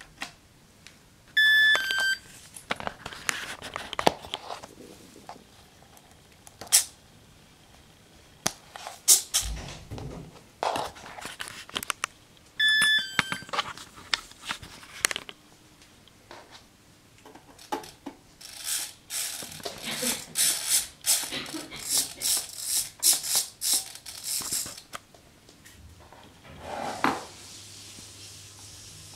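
Electronic beeps from an RC helicopter radio transmitter, twice, each a short identical pattern of tones as it is switched on, among clicks and knocks of its switches and handling.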